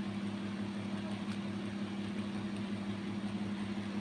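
Steady low hum of a running machine, with a faint rapid pulsing underneath.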